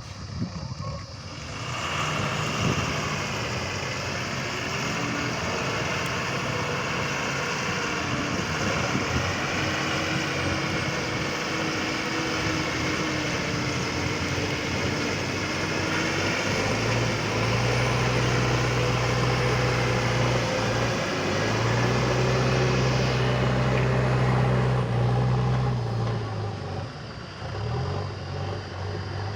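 Diesel engine of a JCB backhoe loader running while it digs and loads mud. Past the middle it works harder with a deep steady hum and gets louder, then eases off near the end.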